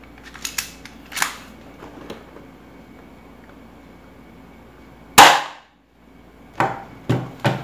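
C.1911A+ spring-powered airsoft pistol with silencer fired once at point blank, a single sharp snap about five seconds in as the 0.20 g BB strikes a cardboard box. A few lighter clicks come before and after the shot.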